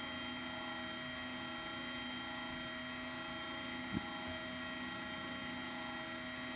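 Small electric motors of a Lego Mindstorms 3D printer, its linear actuators and the 3D printing pen's filament feed, humming steadily as the pen is moved and lays down plastic. A single short click about four seconds in.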